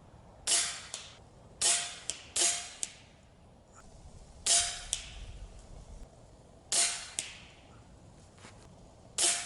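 Snowpeak M60 PCP air rifle firing six shots, each a sharp crack, with a fainter short click following each one a fraction of a second later.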